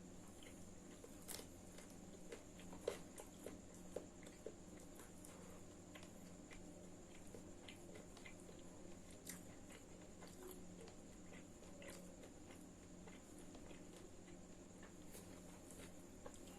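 Faint eating sounds: scattered soft clicks and bites of chewing, with a few sharper clicks in the first few seconds, over a steady faint hum.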